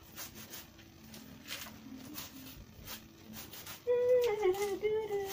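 Soft snaps and rustles of kale (sukuma wiki) and spinach stems being broken and stripped by hand. About four seconds in, a high-pitched voice comes in, held and wavering in pitch, louder than the snapping.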